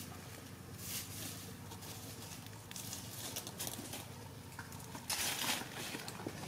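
Faint rustling of dry leaf litter, with a louder rustle lasting about half a second about five seconds in.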